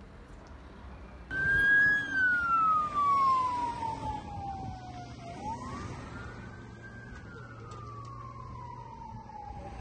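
Emergency vehicle siren sounding a slow wail: it starts abruptly about a second in, then falls slowly in pitch, rises again, and falls once more. It is loudest at the start.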